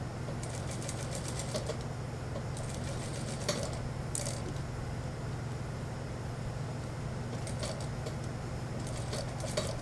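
Industrial lockstitch sewing machine stitching in about four short runs, each a quick patter of needle ticks, over a steady low hum.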